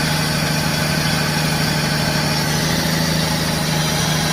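Studebaker flathead engine idling steadily after being revived, running rough, which the owner puts down to a worn-out carburetor and a heat riser that was stuck shut.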